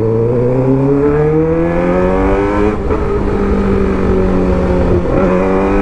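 2008 Suzuki GSX-R600 (K8) inline-four sportbike engine accelerating hard under the rider: its pitch climbs for about three seconds, breaks off briefly, then holds steady.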